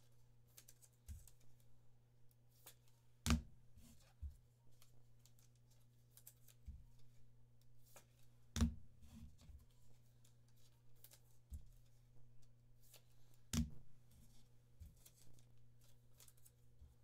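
Trading cards and pack wrappers handled and flipped through on a desk: faint rustling and soft thumps, with three sharp knocks about five seconds apart, over a low steady hum.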